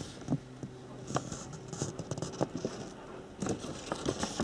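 A printed paper legend sheet crinkling and rustling as it is handled, with a run of small irregular crackles and clicks.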